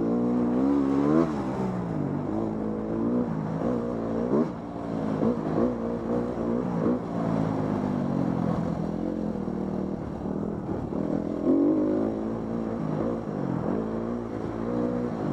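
Dirt bike engine revving up and down over and over as the throttle is opened and closed, with the pitch rising and falling every second or two.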